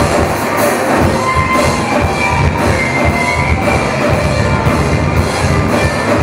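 A live rock band playing loudly, with a drum kit keeping a steady driving beat under dense amplified instruments.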